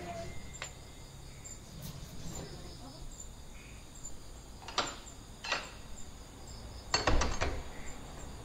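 Crickets chirring steadily in the night. Two sharp taps come around the middle, then a quick run of clicks and rattles near the end as a key works the lock of a wooden door.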